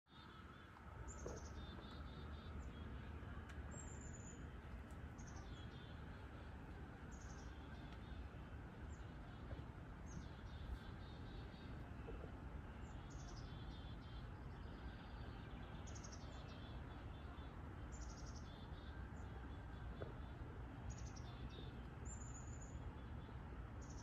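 Songbirds singing: short high notes that sweep downward, about one every second, many followed by a quicker lower trill, over a steady low background rumble.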